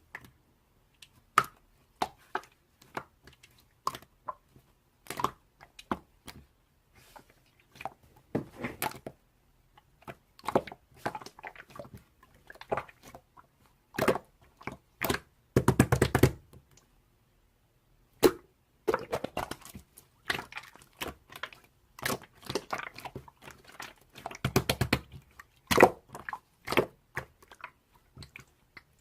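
Slime being squeezed and worked by hand, making scattered wet clicks and pops, with runs of rapid popping about halfway through and again near the end.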